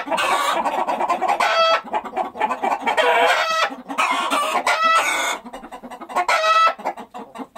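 Chickens clucking and a rooster crowing, several calls overlapping, with short pitched calls recurring about every one and a half seconds and a brief lull after about five and a half seconds.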